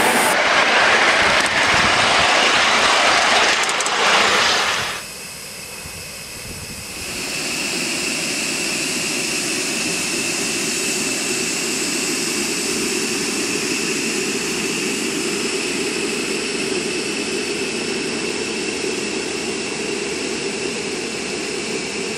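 3.5-inch gauge live-steam locomotive (LBSC Maisie Atlantic). For about five seconds there is a loud rushing noise while riding behind the engine on the move. Then, after a sudden drop, comes a steady hiss of steam from the standing engine, with a faint whistling tone in it.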